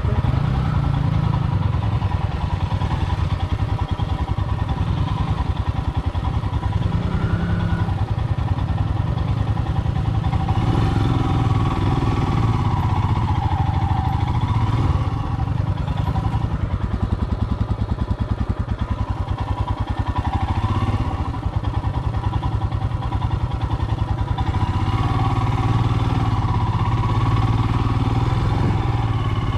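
Royal Enfield Himalayan's 411 cc single-cylinder engine running steadily as the bike is ridden along a rocky dirt trail, heard from on the bike itself.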